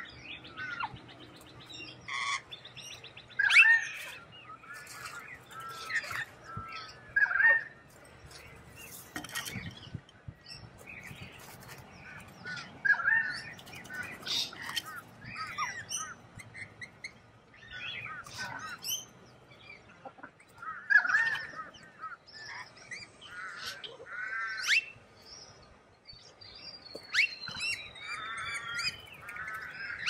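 Chirps and short calls from several birds of a mixed flock, coming and going throughout, with quick runs of repeated calls toward the end.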